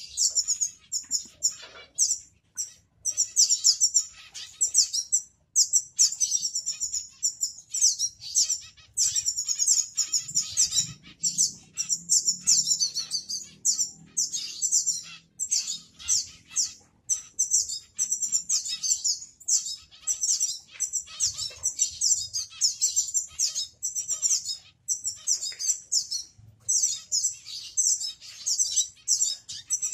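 Small aviary finches, Gouldian finches among them, chirping: many high, quick notes overlapping without a break.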